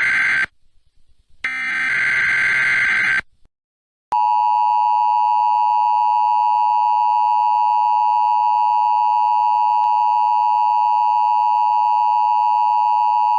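Emergency Alert System broadcast signals. The end of one shrill, buzzing SAME header data burst is followed by a second burst lasting about two seconds. After a short gap, about four seconds in, the loud, steady two-tone EAS attention signal begins.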